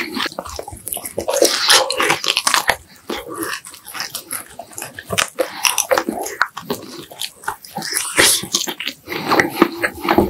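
A person eating close to the microphone: irregular wet chewing, biting and lip smacks.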